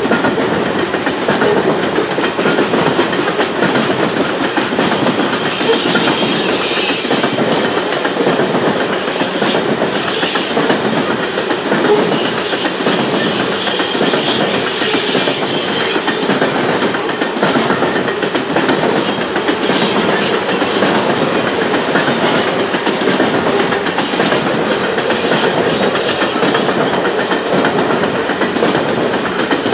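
Coal hopper cars of a long freight train rolling past: steady wheel-on-rail rumble with rhythmic clickety-clack as wheels cross the rail joints, and higher-pitched rail noise swelling through the middle stretch.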